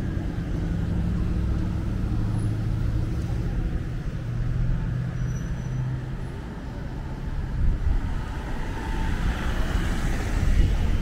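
Street traffic: a vehicle engine running close by with a low, steady hum that shifts in pitch, then a swell of tyre and road noise near the end as traffic passes.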